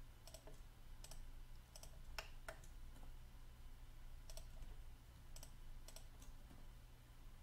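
Faint, scattered clicks of a computer mouse and keyboard, about a dozen spread over several seconds, over a low steady hum.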